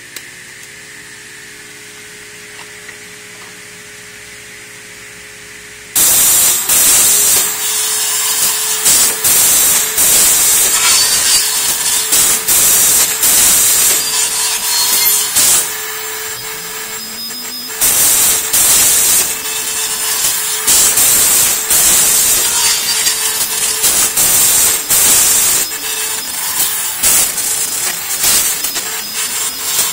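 Automatic trim saw machine cutting white trim moulding. After a few seconds of steady low machine hum, the saw starts suddenly about six seconds in and runs with a steady whine. The blade cuts with loud, repeated surges and a brief quieter lull midway.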